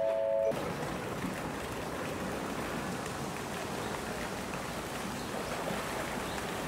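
A three-note chime, stepping down in pitch, cuts off about half a second in; after it a steady rush of noise like running water runs on.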